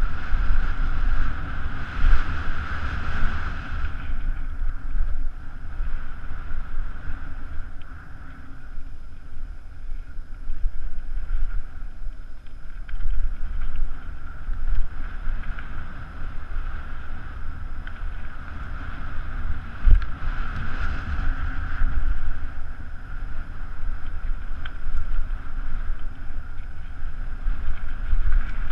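Wind buffeting a helmet camera's microphone over the rolling rumble of a mountain bike running fast down a dirt singletrack. The bike's noise swells a couple of seconds in and again about twenty seconds in, with a sharp knock from a bump about twenty seconds in.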